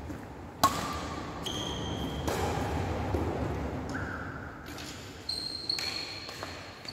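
Badminton play: a single sharp racket hit on a shuttlecock about half a second in, then several short, high squeaks of sports shoes on the wooden court floor.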